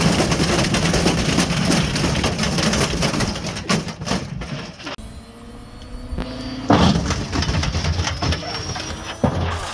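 Ariston Margherita washing machine running with a brick inside its drum: loud, rapid banging and rattling as the brick is flung around. The knocking eases off about halfway through, then starts up again about two seconds later over a faint rising motor whine.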